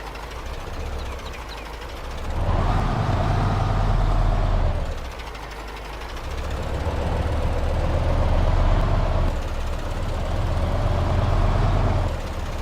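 Radio-controlled construction machine running: a low engine-style rumble with a motor whine that rises and then falls in pitch, in two louder spells, a short one a couple of seconds in and a longer one from about the middle to near the end.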